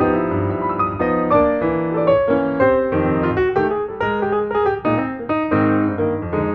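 Background piano music: a melody over chords, the notes struck and changing several times a second.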